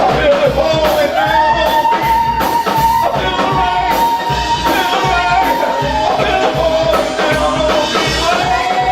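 Live gospel praise music: a band with drums keeps a steady beat while a singer holds one long high note for about five seconds, then the melody falls and rises again.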